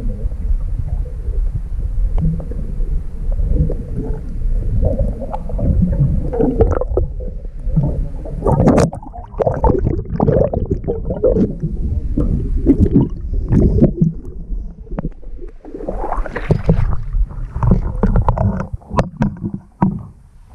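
Underwater sound from a camera submerged in the sea: a low, dull rumbling and gurgling of water moving around the housing, with sharper knocks and rattles about nine seconds in and again around sixteen seconds.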